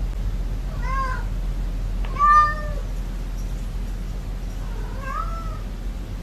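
A cat meowing three times: about a second in, again a little after two seconds (the loudest), and near five seconds. A steady low hum runs underneath.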